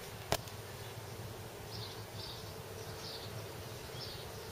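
Insects chirping in short high pulses, about two a second, starting about a second and a half in, over a faint steady low hum. One sharp knock comes just after the start.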